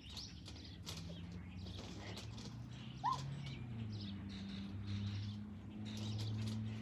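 Small birds chirping over and over, with a steady low hum underneath.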